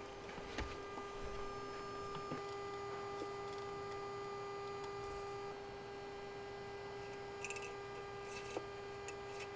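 A steady electrical-sounding hum, with a few faint clicks and, late on, two short scrapes as parts of the outboard are handled.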